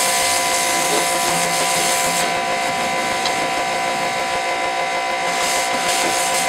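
A 2000 psi pressure washer running steadily, with a whining pump and motor under the rushing hiss of its water jet striking wet deck boards. The hiss of the spray eases off about two seconds in and comes back near the end.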